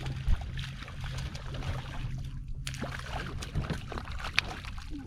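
Water sloshing against a small fishing boat's hull, over a steady low hum that fades out about halfway through. Scattered sharp clicks and knocks come through it, with a distinct knock just after the start and another near the end.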